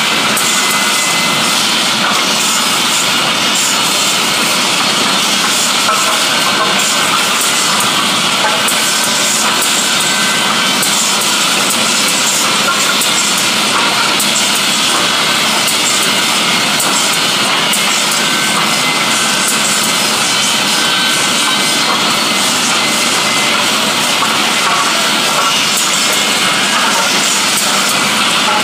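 Industrial woodworking machine running continuously as it cuts timber: a steady, loud noise of cutters or saw blades on wood.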